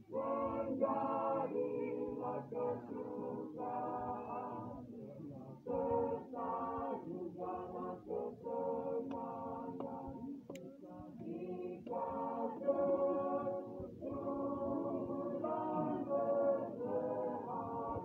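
A masamper group, Sangihe-style a cappella choral singing, several voices in harmony singing held phrases with short breaks between them.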